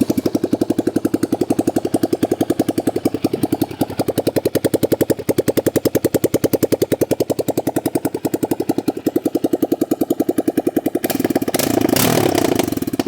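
Yamaha Raptor 700R's single-cylinder four-stroke engine idling with its exhaust removed, running straight off the open header as a loud, sharp train of individual pulses. It is revved briefly about eleven seconds in.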